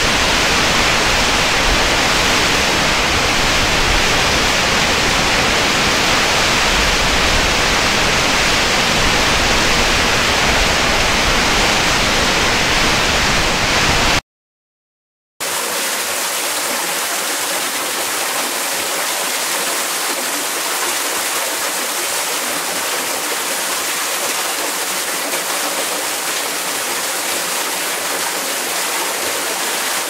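Two recorded falling-water sound effects played one after the other, each a steady rushing wash. The first is full and deep and cuts off about halfway. After about a second of silence, the second starts: thinner and brighter, without the low rumble.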